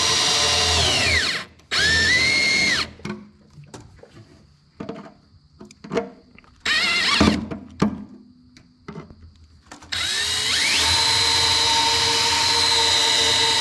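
Power drill boring holes through the top layer of a car's steel inner fender sheet metal, to make plug welds in place of failed spot welds. The motor whines and winds down about a second in, runs again briefly, then gives way to a few seconds of clicks and knocks with one short burst, before a long steady run near the end.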